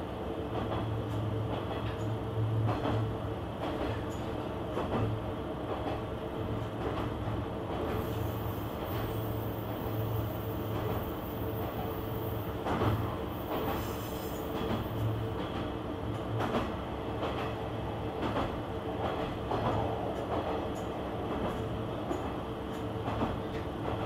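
KiHa 120 diesel railcar running along the line, heard from inside the car: a steady pulsing engine drone under wheel-on-rail noise, with scattered knocks from the track. A faint high thin whine comes in for several seconds midway.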